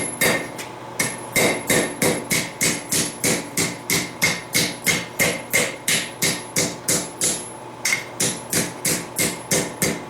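Hand hammer striking hot steel on an anvil in a steady rhythm, about three blows a second, each with a bright metallic ring, with a brief pause a little after seven seconds in.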